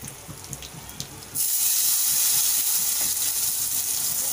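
A ladle of hot coconut-oil tempering (mustard seeds, urad dal, dried red chillies and curry leaves) poured into simmering mutton curry in a clay pot: a few light crackles, then a sudden loud sizzle about a second and a half in that keeps hissing steadily.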